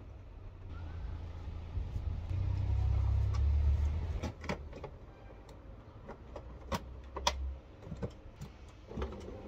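Sharp clicks and knocks of the plastic tailgate trim and its clips being handled and pressed into place, most of them in the second half. A low rumble swells through the first half and is the loudest sound.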